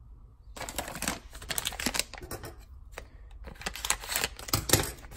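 Foil blind-bag packaging crinkling and crackling in the hands as it is handled and opened: a dense, irregular run of crackles starting about half a second in, loudest near the end.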